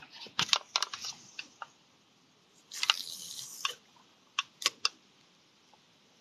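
A series of sharp clicks and knocks from a fishing rod and reel being handled, with a hiss lasting about a second near the middle.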